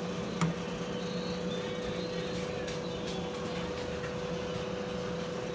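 Instant Omni Plus toaster oven air fryer running in air-fry mode: its convection fan makes a steady hum with a constant mid-pitched tone, pretty loud. A single click sounds about half a second in.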